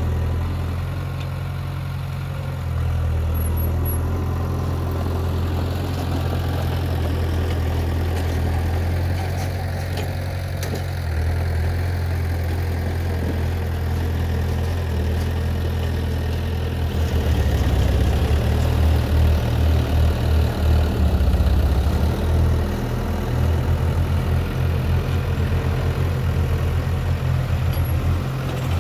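Heavy diesel engine of earthmoving machinery running with a deep, steady hum. A little over halfway through it grows louder and takes on a rapid pulsing throb.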